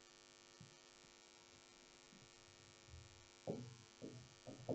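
Near silence with a faint steady electrical hum. A few short, faint sounds come in about three and a half seconds in.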